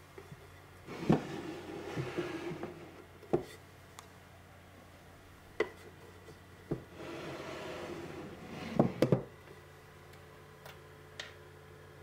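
Wooden drawer being pulled out, sliding with a rubbing, scraping sound, then pushed back in, ending in a few sharp wooden knocks as it shuts. Single clicks and taps come between the two slides.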